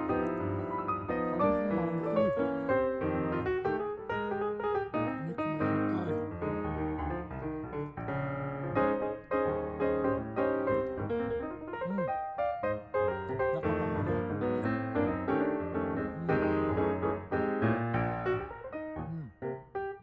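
Background music led by piano, a steady run of notes.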